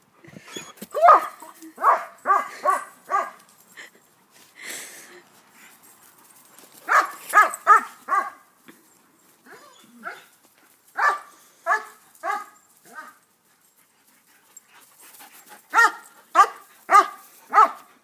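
German shepherd barking in quick runs of four or five barks, several times over, with pauses between: play barking while chasing.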